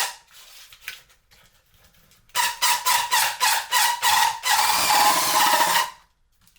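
Drill bit boring into a 3D-printed plastic part, squealing in rapid pulses at a steady pitch as it clears scrap filament from a printed channel. It starts about two seconds in and stops shortly before the end.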